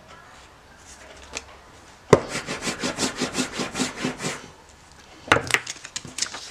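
Rubber brayer rolled over a slab of printing ink, starting with a sharp knock and then a rapid, even rasping crackle of about seven strokes a second for roughly two seconds. A little after five seconds come a couple of sharp knocks and rustles.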